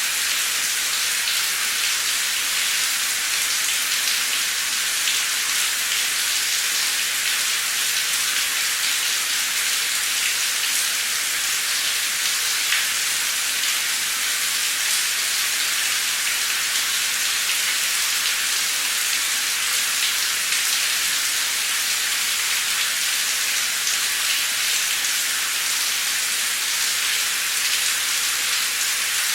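Heavy, torrential rain pouring down, a steady dense hiss of drops with faint scattered patters.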